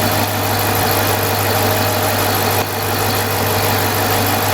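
Smittybilt 2780 12-volt portable air compressor running steadily with a constant hum while inflating a truck tire.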